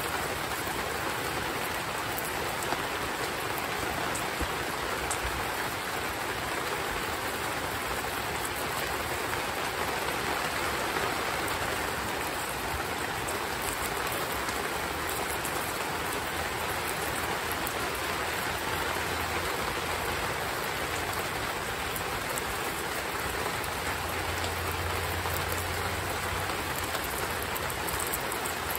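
Heavy rain falling steadily, a dense even hiss with a few faint ticks of drops.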